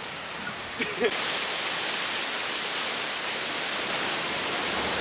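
Steady rush of a waterfall, an even hiss that comes in suddenly about a second in, after a few light clicks of footsteps.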